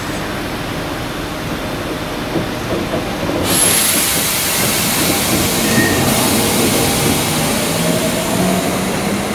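Semboku Rapid Railway 5000-series electric commuter train pulling out of the station, its motors' pitched hum rising as it gathers speed. A loud steady hiss starts suddenly about three and a half seconds in.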